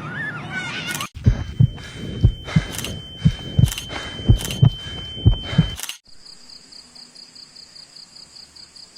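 Heartbeat sound effect: about five double thumps, lub-dub, spaced evenly over four and a half seconds, with a thin steady high tone running under them. It cuts off sharply, and a quieter, rapidly pulsing high buzz follows.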